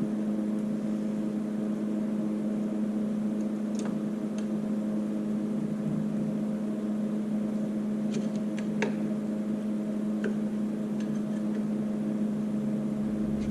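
Steady machine hum, several even tones over a low drone, with a few light clicks and taps about four seconds in and again around eight to ten seconds in.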